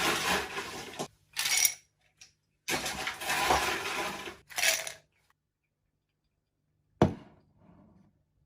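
Several bursts of hissing, rushing noise, then a single sharp clink of a hard object about seven seconds in.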